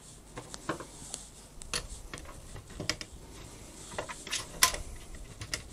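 Light, irregular clicks and small rattles of the plastic-and-metal disc loading mechanism and wiring connectors of an old Schneider CDP7000 CD player being handled and repositioned by hand, the sharpest click about four and a half seconds in.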